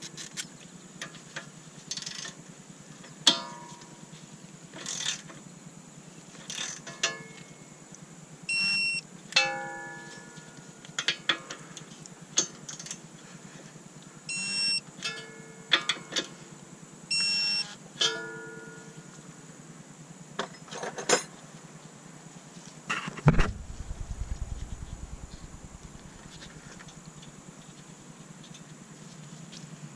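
Metal hand tools clinking and knocking on a car's front strut and steering-knuckle bolts, some clinks ringing briefly. Three short, steady electronic beeps from a Snap-on digital torque wrench signal the set torque being reached. A dull thump with a low rumble about 23 seconds in.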